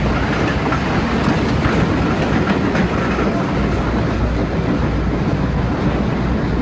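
Steady, loud low rumble of running machinery, continuous and without a break.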